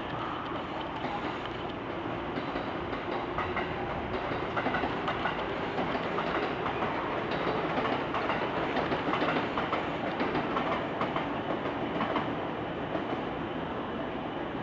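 Train moving through the station, its wheels clattering over rail joints; the clatter grows louder about four seconds in and eases near the end.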